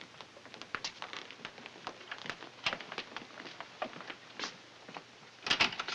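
Footsteps of two people walking on a hard corridor floor, irregular taps with a brief cluster of louder knocks near the end.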